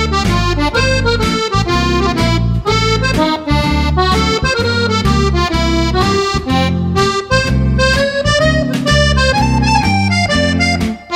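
Background music led by an accordion: a flowing melody over a steady, rhythmic bass and chord accompaniment.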